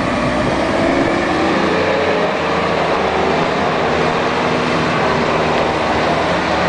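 Komatsu WA380-5H wheel loader's diesel engine running as the loader drives with its bucket raised and loaded. The engine pitch shifts up and down in the first half, then holds steady.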